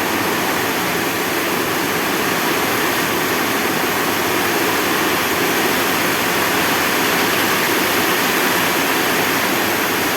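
Steady, loud rushing of flowing water.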